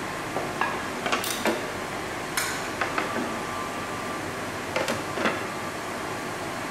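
Ring-pull lid of a tin can being pried up and peeled off: a run of sharp metallic clicks and creaks as the scored lid cracks open and tears around the rim, with a few more clicks about five seconds in.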